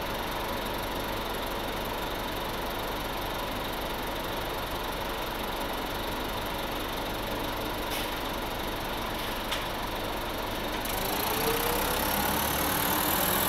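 Detroit Diesel Series 50 diesel engine of a 1996 Nova Bus RTS-06 city bus idling steadily, with two light clicks about a second and a half apart. About eleven seconds in, a high whine starts and rises in pitch as the engine sound grows louder.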